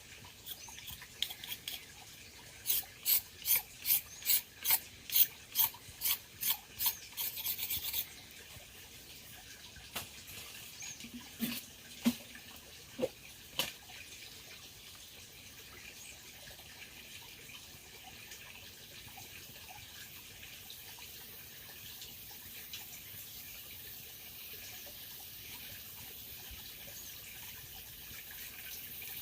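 A run of about a dozen even rasping strokes, roughly two a second, like a blade or tool scraping back and forth, stopping about eight seconds in. A few sharp knocks follow, then a steady hiss that grows slowly louder.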